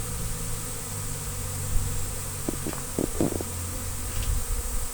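Large honey bee swarm in flight, a steady low droning hum, with a few brief sounds about three seconds in.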